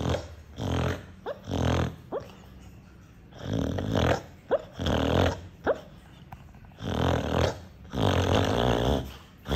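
Dog snoring loudly in its sleep: a rattling buzz on each breath, like an electric drill, about six snores with short rising squeaks between some of them.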